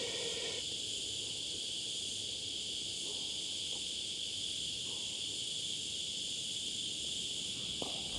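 Cicadas droning: a steady, high-pitched insect buzz that holds unchanged throughout.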